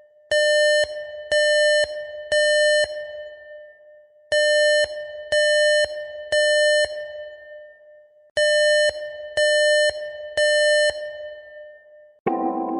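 Electronic emergency-alert alarm tone beeping in groups of three half-second beeps, a group every 4 seconds: the temporal-three evacuation pattern. Synthesizer music comes in near the end.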